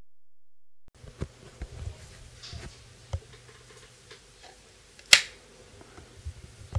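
Silence for about a second, then a faint low hum with scattered small clicks and knocks. About five seconds in comes one sharp, loud click of a switch being flipped on the ferrofluid chamber's control box, as its light comes on.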